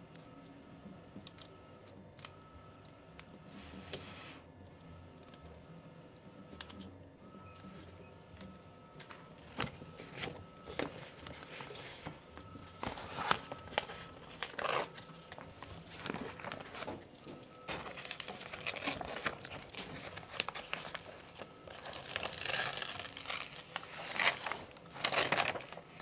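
Paper application tape and vinyl backing sheet being rubbed down and peeled off a glass fridge door by hand: scattered scrapes and light clicks, getting busier partway through, with louder crinkling and rustling of paper in the last few seconds.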